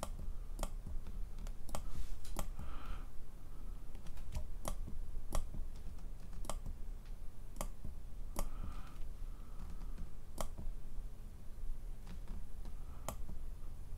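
Amiga 1200 computer keyboard keys being pressed one at a time, sharp single clicks about once a second, stepping through the disk drive test menu.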